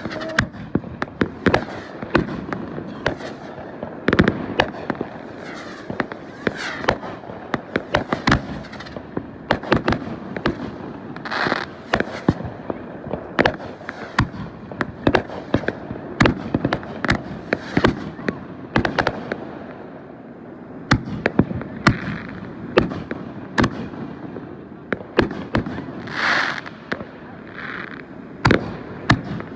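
Fireworks going off: a dense, continuous string of sharp pops and bangs, with a few longer hissing bursts mixed in.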